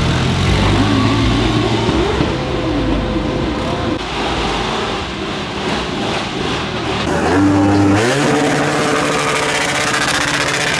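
Quad bike engine running and revving up and down as it is ridden around. Near the end, a large adventure motorcycle's engine revs up and is held at high revs while it does a burnout.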